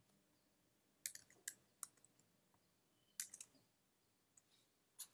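A few faint computer keyboard keystrokes, in two short clusters about one and three seconds in.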